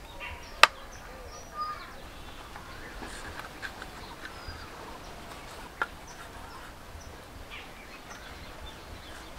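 Knife blade striking a chopping board while scoring raw chicken leg pieces: a sharp knock under a second in, the loudest, another a few seconds later, and a few lighter taps. Birds call throughout.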